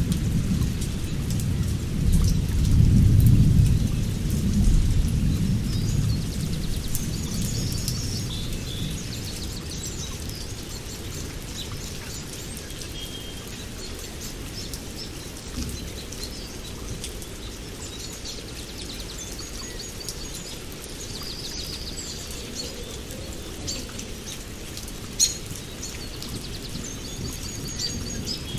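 Steady rain with thunder rumbling low in the first several seconds, then dying away. Birds chirp throughout, and there is a single sharp tap near the end.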